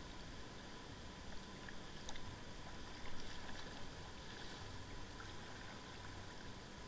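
Kayak paddle dipping into a calm river, soft splashes and water trickling off the blade, with two slightly louder paddle splashes about two and three seconds in, over a steady hiss of moving water.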